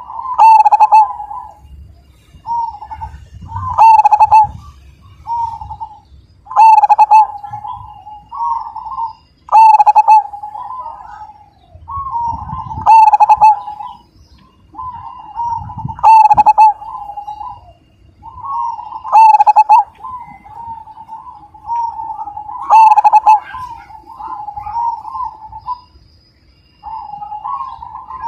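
Zebra dove (perkutut) singing its cooing song: rolling phrases of coos, each rising to a loud peak, roughly one every three seconds, with a short pause near the end.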